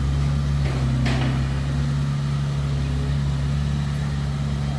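Heavy diesel engine of a dump truck or bulldozer running steadily, with a brief sharp noise about a second in.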